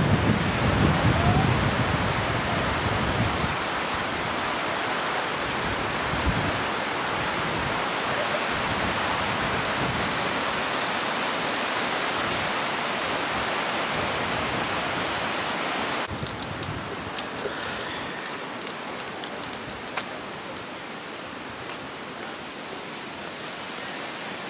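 A rocky mountain stream rushing over stones, a steady hiss of water, with wind buffeting the microphone in the first few seconds. About 16 seconds in the rush suddenly drops to a quieter level, with a few faint clicks after.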